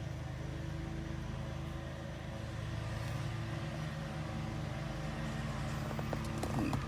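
Steady low hum in a car cabin, with a few light plastic clicks near the end as the media knob is handled.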